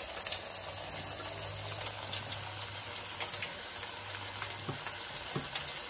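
Cornmeal-coated courgette slices frying in the hot oil of an electric deep fryer: a steady sizzling hiss with a few faint ticks.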